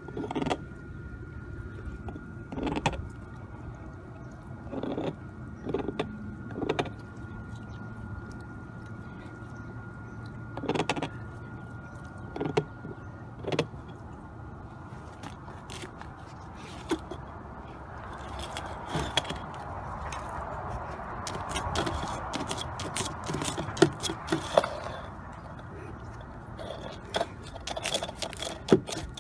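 A St. Bernard moving about in snow: scattered crunches, scrapes and thumps from its paws and muzzle pushing through the snow, with a longer stretch of steady rustling in the second half.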